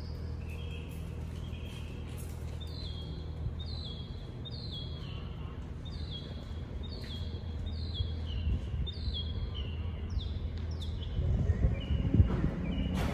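A bird chirping over and over, short falling two-note calls repeated in a steady series, over a low steady hum. Near the end a louder low rumble comes in.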